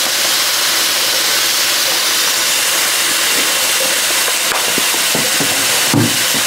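Steak and sauce sizzling in a pan as it reheats: a steady hiss, with a few light knocks near the end.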